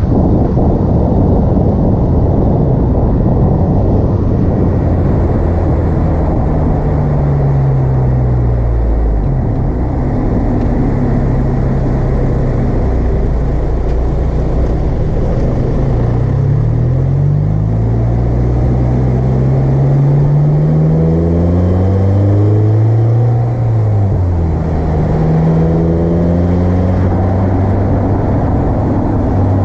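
Car engine breathing through an aftermarket Acuity cold air intake while driving, its note rising under acceleration and falling back when eased off, over steady road and wind rumble. A long climb in pitch runs about two-thirds of the way through, then drops off suddenly.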